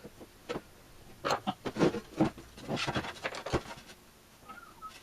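Clicks, taps and scraping from hands working parts of an old B&K E-200D signal generator's chassis loose during disassembly, clustered in the middle of the stretch.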